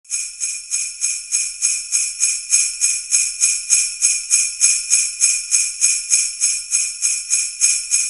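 Jingle bells (sleigh bells) shaken in a steady, even rhythm of about four shakes a second.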